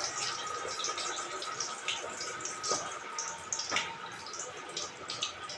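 Thick curry gravy simmering in a steel pot on a gas stove, bubbling with irregular small pops and plops.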